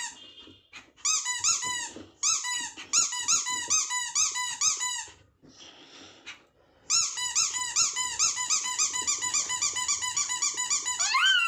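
Rubber squeaky toy squeezed over and over, each squeak a short rising-and-falling tone, in two fast runs of about three to four squeaks a second with a short pause between. Near the end comes one longer squeal that rises and then slowly falls.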